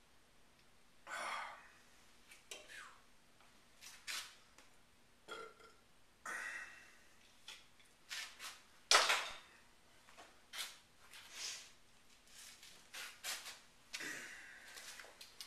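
A man belching repeatedly after chugging malt liquor, a string of short, irregular burps starting about a second in.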